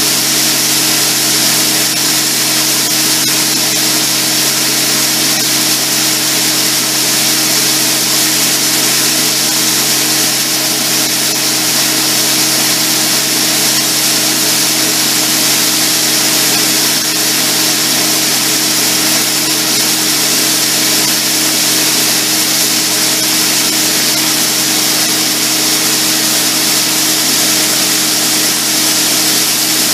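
Heavy farm machinery running steadily: a constant mechanical drone with a steady low hum and a strong high hiss, no change in speed.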